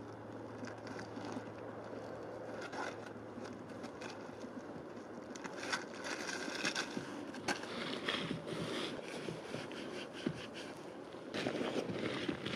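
Plastic food packaging crinkling and nylon snowwear rustling as packets and clamshell containers are handled and set down one by one on snow, with scattered small clicks and taps that come thicker in the second half.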